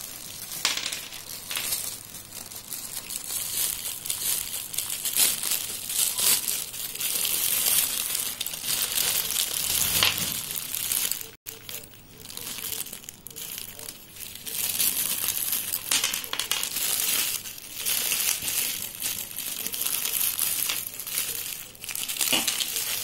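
Clear plastic bag crinkling as hands open and rummage in it, with lumps of dry clay rattling and clinking against each other inside.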